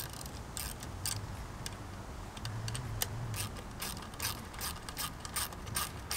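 Hand ratchet with a 10 mm socket clicking in short runs, roughly two a second, as it is swung back and forth to tighten the bolt that holds the slip-on exhaust.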